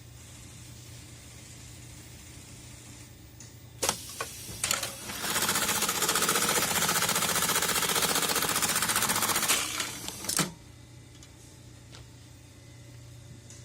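JUKI AMS-210E computerized pattern sewing machine: a low steady hum, then a few sharp clacks about four seconds in, followed by about five seconds of loud, rapid, even stitching through heavy leather. A final clack ends the stitching, and the hum continues.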